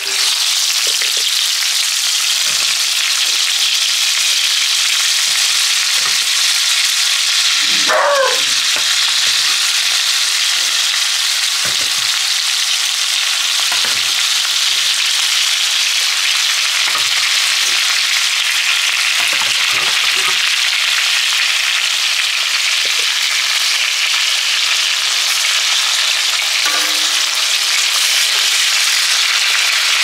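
Potato fries sizzling steadily in hot oil in a skillet. Short knocks come now and then as metal tongs turn the fries in the pan.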